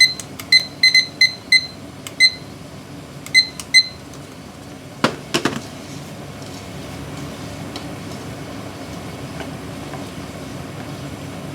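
Kitchen appliance control panel beeping with short electronic beeps, about nine in quick, irregular succession, as its buttons are pressed. A couple of knocks follow about five seconds in, over a steady low appliance hum.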